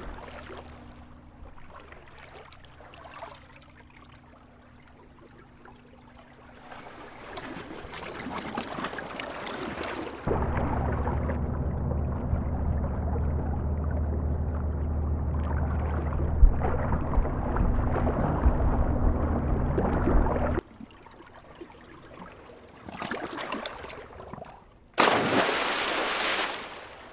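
Soundtrack of water ambience: a gentle wash of water over a low steady drone. About ten seconds in it turns abruptly into a louder, muffled underwater rush, which cuts off suddenly about twenty seconds in. Near the end comes a short, loud rush of water like a wave.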